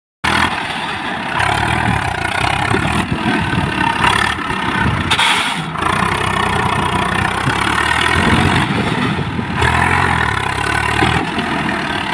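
A 1993 Swaraj 855 tractor's diesel engine running as the tractor is driven in turns over loose soil, its engine note shifting as the driver works the throttle.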